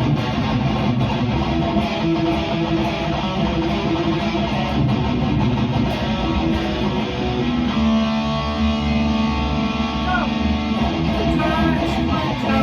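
Instrumental break of a heavy metal song, led by electric guitar over bass. About eight seconds in, a chord is held and rings for about three seconds, followed by sliding guitar notes near the end.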